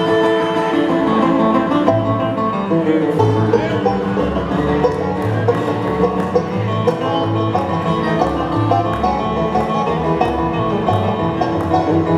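Bluegrass band playing an instrumental passage live: picked banjo and other string instruments over low bass notes that change about once a second, with no singing.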